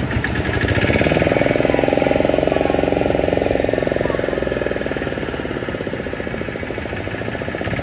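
Long-shaft outboard motor on a small fishing boat starts up and runs fast, with a rapid, even beat. It eases slightly past the middle and picks up again near the end.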